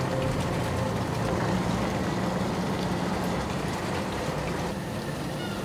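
Fishing boat's engine running steadily, under an even hiss of spraying water.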